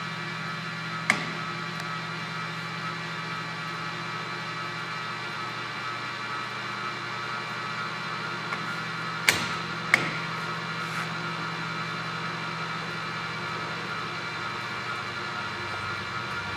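Colchester 13x40 geared-head lathe running under power, its headstock gearing giving a steady hum and whine. A few sharp clicks come as the carriage feed controls are worked: one about a second in and two close together near the middle.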